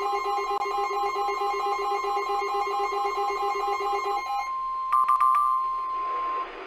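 NOAA Weather Radio warning alarm, a steady single tone about 1 kHz high, sounding with a rapid warbling trill like a telephone ring that stops about four and a half seconds in. A few quick chirps come about five seconds in, and the steady tone cuts off shortly before the end.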